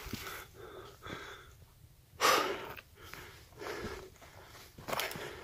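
A hiker panting hard while climbing over rock, worn out by the steep ascent. The breaths come roughly once a second, with one loud, hard exhale about two seconds in. A few faint clicks come from steps or hiking poles on rock.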